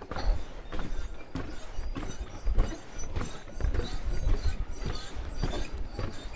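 Footsteps of a person walking, steady steps about two a second.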